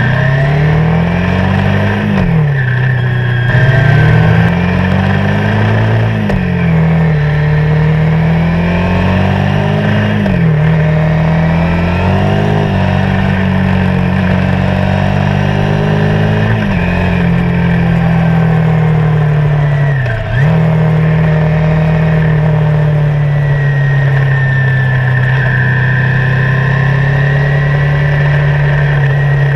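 Motorcycle engine accelerating through the gears at road speed. Its note climbs and drops back sharply with each of four upshifts in the first dozen seconds, then holds a steady cruising drone, with one brief dip about twenty seconds in.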